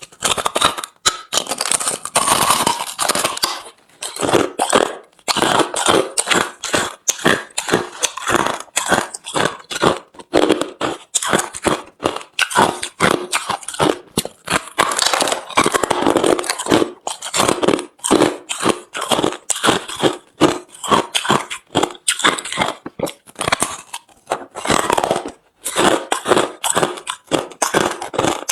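Hard, refrozen crushed ice crunching between the teeth, bite after bite, close to the microphone: rapid loud cracking chews several times a second, with short pauses between mouthfuls, the longest about four and twenty-five seconds in.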